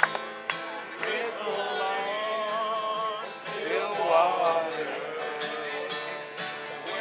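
Solo acoustic guitar strummed steadily, with a man singing over it.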